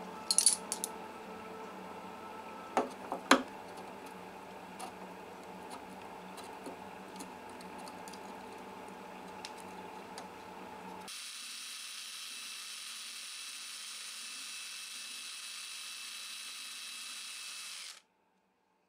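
Small drill boring a hole through a fret slot of a rosewood fretboard into the dovetail neck joint: an access hole for steaming the neck loose. Steady motor running with a few sharp clicks near the start. About two-thirds through it changes abruptly to a higher hissing whine, then cuts off suddenly near the end.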